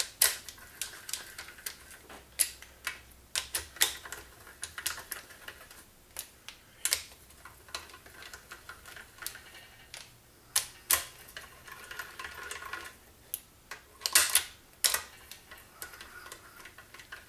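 Hand ratchet clicking in short, irregular runs as it runs down the valve-body bolts of a Turbo 400 automatic transmission, with the odd light knock of the socket and extension on the metal.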